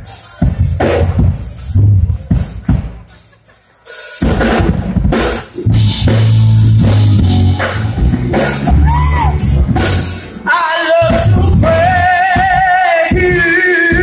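Live church band music: a drum kit playing, briefly dropping away near four seconds, then full bass-heavy music. From about eleven seconds a voice sings a held, wavering melody line over the band.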